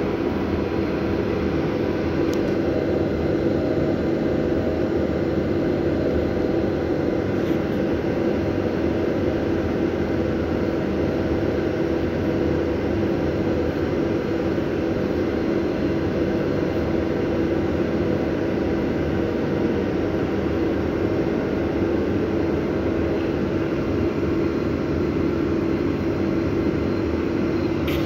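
Steady mechanical hum of a running machine, constant in pitch and level throughout.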